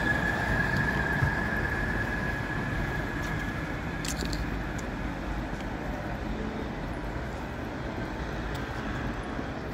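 Stadtbahn light-rail train pulling away from the platform, its running noise and a steady high whine fading as it draws into the distance.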